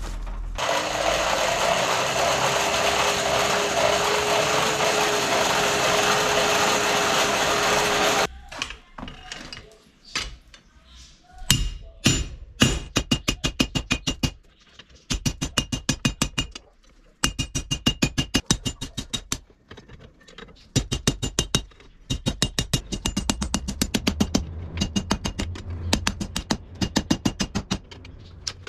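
A forge blower runs with a steady hum and rush of air, rising slightly as it starts, then cuts off suddenly about eight seconds in. After that a hand hammer strikes a red-hot car coil spring on a steel anvil in quick runs of about five ringing blows a second, with short pauses between the runs.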